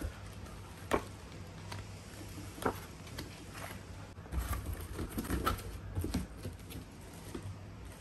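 Scattered light knocks and taps, with a busier run of clatter and soft thuds in the middle, as a blender and its packaging are handled, over a faint steady low hum.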